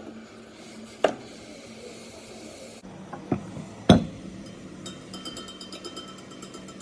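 Hand tools working on metal parts: a few sharp metallic knocks, the loudest about four seconds in, then a rapid run of metallic clicks, about ten a second, to near the end.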